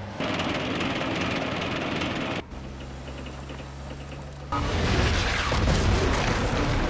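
Vehicle engine noise across two abrupt cuts, the second a steady low hum, then about four and a half seconds in a sudden loud explosion that keeps going, the blast of a meteor strike on a country road.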